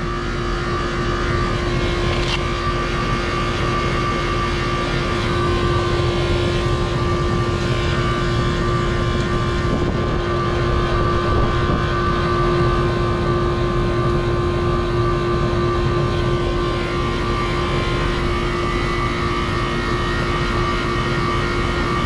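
4-ton R-410A air-conditioning condensing unit running: the compressor and condenser fan make a steady hum with two held tones. The compressor is getting loud, which the technician takes as a sign of a bad compressor.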